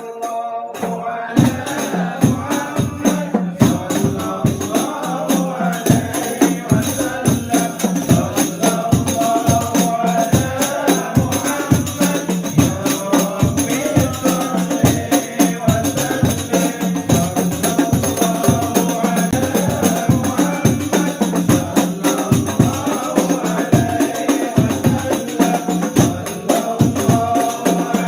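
A group of voices singing devotional sholawat in unison to a steady beat of hand-struck frame drums with jingles, the rebana or hadrah ensemble typical of a Maulid gathering.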